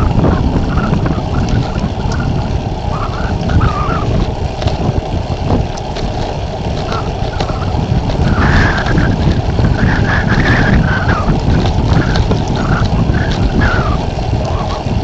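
Strong gusting wind in a blizzard: a loud, deep rush that swells and eases, with short wavering higher tones scattered over it.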